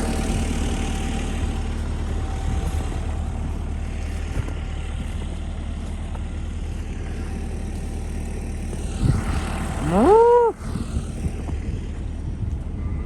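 Kubota diesel tractor idling steadily, with a cow mooing once about ten seconds in, a call that rises and then falls.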